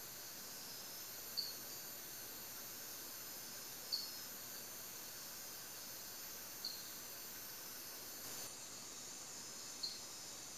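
Rainforest insect chorus, a steady high-pitched hiss, with a short, sharp high chirp repeating four times, about every three seconds.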